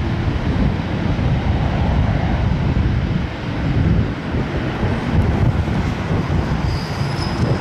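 Boeing 777-300ER's GE90 jet engines heard as a loud, steady, deep rumble as the airliner rolls out after touchdown, with a faint high whistle near the end.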